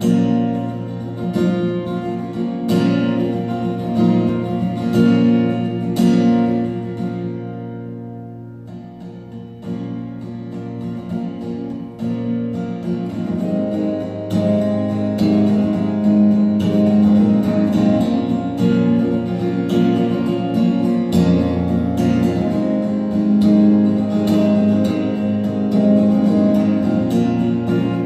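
Guild JF-55 jumbo acoustic guitar being strummed. A few widely spaced chords ring out and die away over the first several seconds, then steady rhythmic strumming starts about twelve seconds in.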